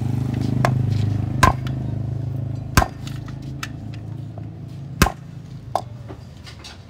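Sharp knocks of steel and wood at irregular intervals, about five of them, as an adjustable wrench is worked on the clutch nut of a Yamaha Mio's CVT clutch assembly to tighten it. A low steady hum sits underneath and fades toward the end.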